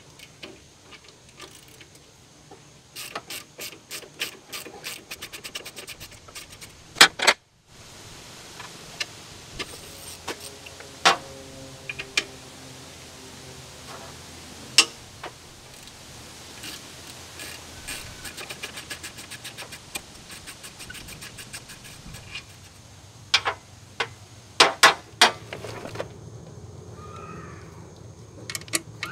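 Socket ratchet clicking in runs of quick strokes while the alternator's mounting bolts are undone, with a few sharp metal clinks of tools against the engine bracket.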